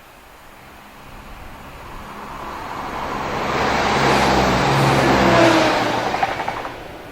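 Class 170 Turbostar diesel multiple unit passing by: the engine and running noise grow over a few seconds, peak, then die away quickly, with a brief run of sharp clicks near the end.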